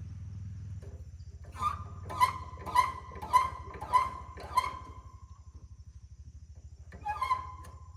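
An animal calling six times in an evenly spaced run, about one and a half calls a second, then twice more near the end, each call sharp with a clear pitch. Under it runs a low, steady engine hum.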